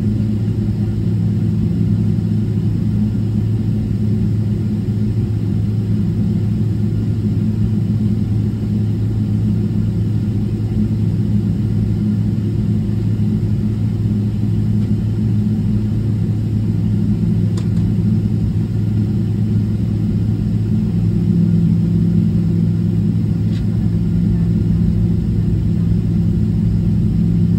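Steady low drone of an airliner cabin, heard from a window seat with the jet standing on the ground. Two faint ticks come in about two-thirds of the way through and again near the end.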